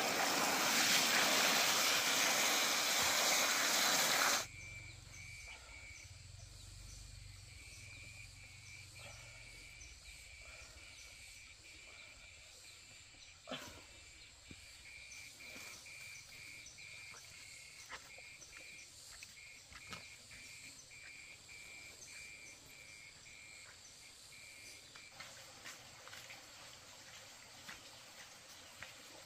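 Water spraying and gushing out of an open joint in a black plastic water pipe, cutting off suddenly about four seconds in. After that, a quiet outdoor ambience with a steady run of high repeated chirps from frogs and insects, a few light ticks and one sharper click midway.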